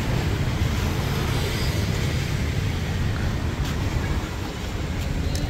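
Steady street traffic noise, a low rumble of passing cars and motorbikes.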